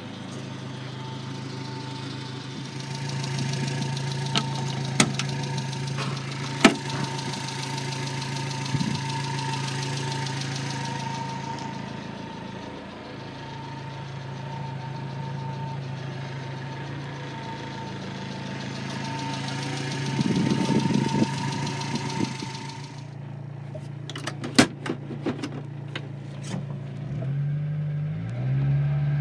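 A 1994 Subaru Sambar van's 660 cc four-cylinder engine idling steadily, heard inside the cabin, with a few sharp clicks and, about three-quarters through, a cluster of sharp clacks. Near the end the engine note rises in steps.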